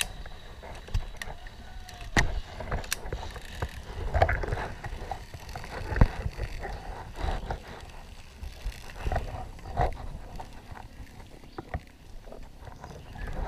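Scattered clicks and knocks from a climbing harness and its metal carabiners being handled, several seconds apart, over a low rumble.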